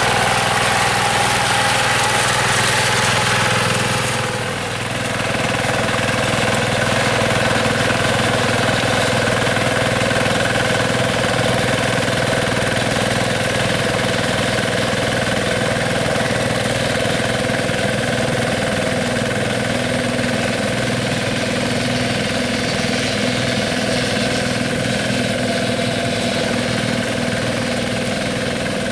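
Yanmar TF105 single-cylinder diesel engine of a hand tractor running steadily, with a brief dip in loudness about four seconds in.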